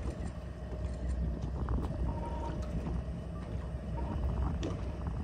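Fishing boat's engine idling in a steady low rumble, with wind on the microphone, a faint steady hum and a short high beep about two seconds in.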